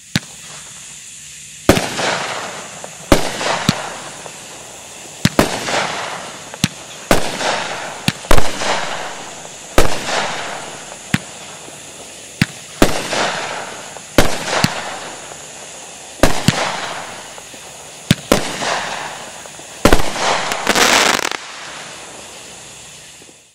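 A Brothers Pyrotechnics 'Luck O' the Irish' 12-shot multi-shot aerial fireworks cake firing: a run of sharp shots about every second to second and a half, each followed by a hiss that fades over about a second. Near the end comes a longer, denser burst.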